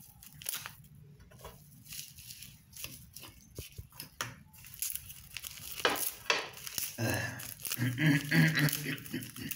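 Dry seaweed sheets being torn and crumbled by hand, a run of short, crisp crackles and crinkles.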